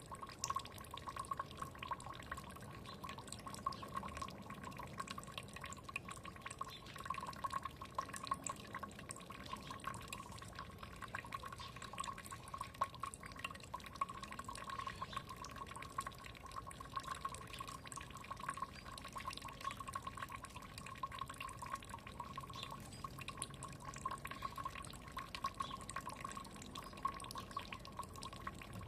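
Small stream of running water trickling and dripping, a dense continuous patter of drops with a steady burbling tone.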